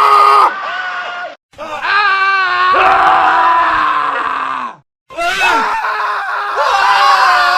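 Several men's screams cut one after another, each a long held cry, with two brief silent gaps between clips. One scream wavers up and down in pitch about two seconds in.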